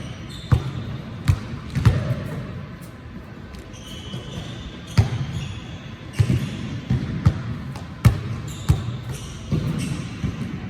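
Basketball being dribbled on a hard court: sharp, irregular bounces, with a short lull after about two seconds before the bouncing resumes.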